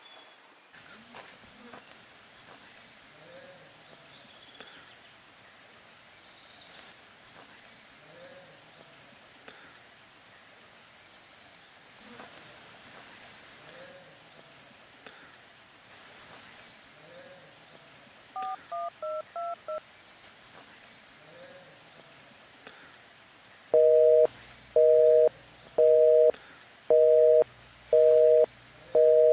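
Faint outdoor ambience, then a quick run of six telephone keypad tones as a number is dialled. A loud busy signal follows, a two-tone beep pulsing about once a second, meaning the line is engaged.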